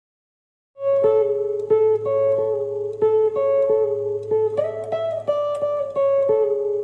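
Outro music: a guitar picking a quick, repeating pattern of notes over a steady low drone, starting about a second in after a brief silence.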